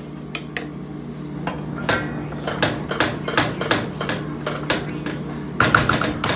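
A metal utensil clinking and knocking against a stainless-steel pot as food is stirred and scooped, in a run of irregular sharp clinks that grow louder and closer together near the end. A steady low hum runs underneath.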